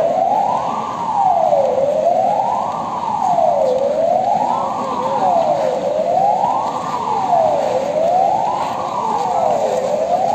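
Emergency alarm siren sounding in an alarm test. It is a steady wail that rises and falls evenly in pitch, about one full rise and fall every two seconds.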